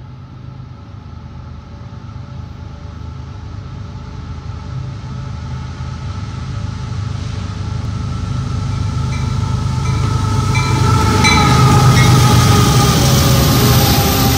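Union Pacific diesel locomotives leading an intermodal train as they approach and pass close by: a deep engine rumble with a steady whine above it, growing steadily louder and peaking about twelve seconds in as the lead units go past.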